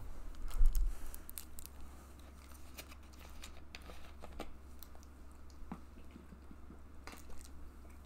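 A heavy low thump about half a second in, then scattered clicks and crinkles of a plastic water bottle being picked up, opened and drunk from.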